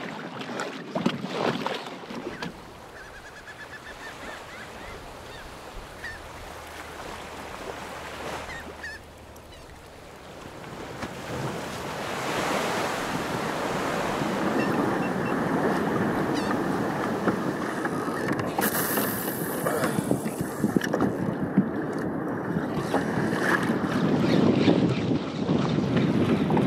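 Choppy sea water splashing and rushing against a kayak's hull, with wind buffeting the microphone. It is quieter early on, then grows into a louder, steady rush of waves and wind from about halfway through.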